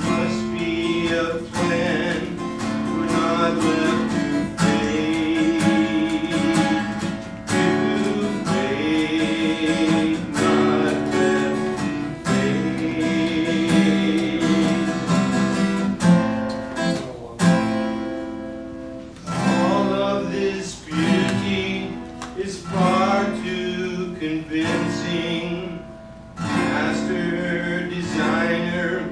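Music of a song played on acoustic guitar, strummed chords with wavering held melody notes above them.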